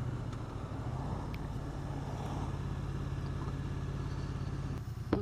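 Triumph Street Twin 900's parallel-twin engine running at a steady cruise with no revving, heard through a helmet camera with rushing wind and road noise.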